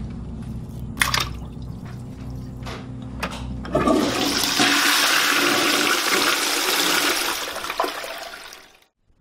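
Concealed-cistern toilet flushed with its wall-mounted dual-flush button: a sudden rush of water starts about four seconds in, runs for about four seconds and fades out. Before it, a low steady drone with a few sharp knocks.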